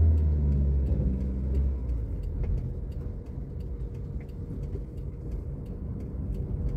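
Car engine and road rumble heard from inside the cabin as the car creeps through a junction: a strong low engine drone for the first two seconds, then a steadier, quieter rumble with faint scattered ticks.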